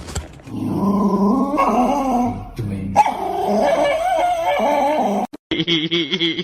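A dog vocalizing in long, wavering whines and howl-like calls that bend up and down in pitch. About five seconds in, the sound cuts off abruptly and a different wavering pitched sound begins.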